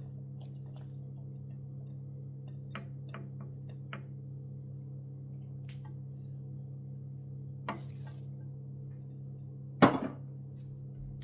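Kitchen cookware and utensils being handled: a few light clicks and taps, a small knock, then one loud clatter of a pot or pan about ten seconds in, over a steady low hum.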